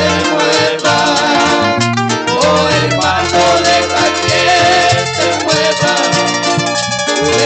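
Live Latin-style band music: guitar, bass and percussion playing a song at a steady rhythm.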